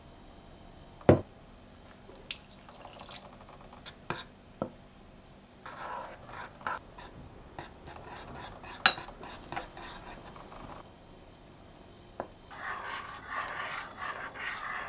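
Metal spoon clinking against a ceramic mixing bowl and scraping as a flour mixture is stirred with oil and water into a batter. Sharp clinks come about a second in and near nine seconds, with a stretch of steady stirring near the end.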